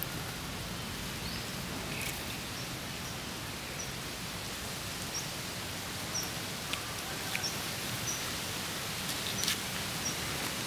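Steady outdoor background hiss, with faint short high chirps every second or so from about two seconds in and a few soft clicks.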